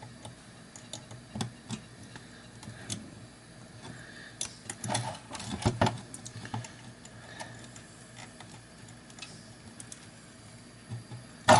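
Small scattered clicks and taps as a circuit board and its plastic parts are handled and fitted, with a busier patch of clicking about halfway through.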